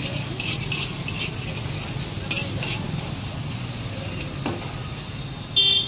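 Soya chowmein with vegetables sizzling in a hot pan as it is stirred and tossed, with irregular scrapes of the spatula against the pan. Near the end a short, loud, high beep cuts in.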